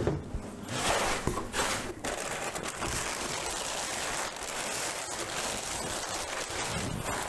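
Crumpled brown kraft packing paper crinkling and rustling as it is handled and pulled out of a cardboard shipping box.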